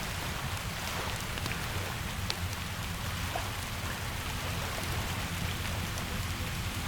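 Steady rain falling over a low, even rumble, with scattered small crackles and pops from a wood fire.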